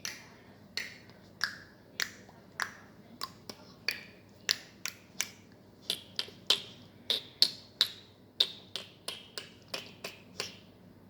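A person making a series of sharp, ringing clicks, one at a time at first, then quickening to about three a second, each click a little different in pitch. The clicks stop shortly before the end.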